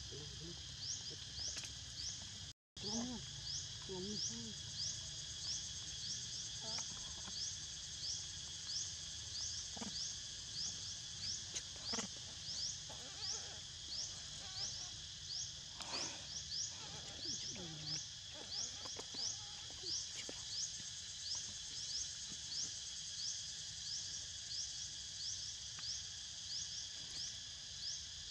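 Insects in steady chorus, one of them giving a short rising chirp over and over, about one and a half times a second.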